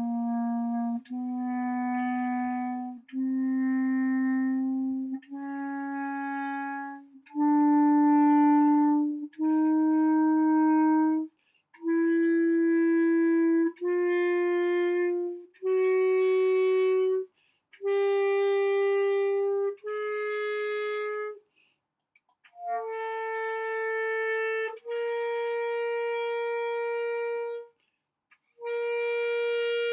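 Clarinet playing an ascending chromatic scale from low C up to high C. Each note is held about two seconds with a short break between notes, and the top note is held longer. Near the end the high C sounds again as the descending half of the scale begins.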